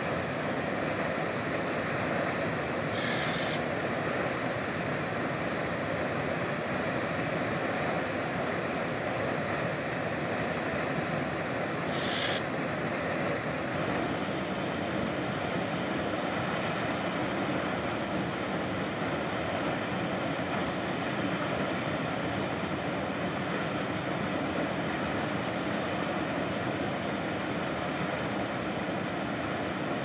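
Steady, unbroken rush of a large waterfall pouring off a cliff into the sea, with two brief faint high chirps about three and twelve seconds in.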